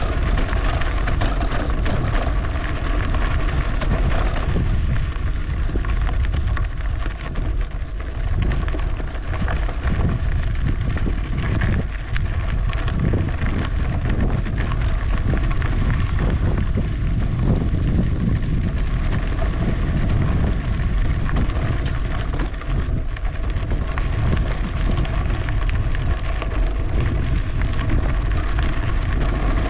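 Wind buffeting the microphone on a moving e-bike, a continuous gusting rumble, with a faint steady whine running under it.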